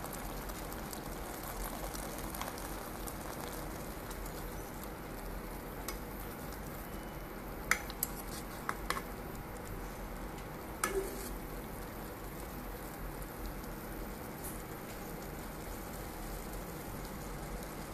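Vermicelli cooking in boiling water in a nonstick kadai, with a steady bubbling hiss. A few sharp clicks about halfway through as a spatula stirs against the pan.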